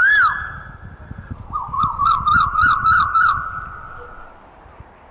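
Asian koel calling: one loud note that rises and falls right at the start, then a fast run of about seven short rising notes that fades out about four seconds in.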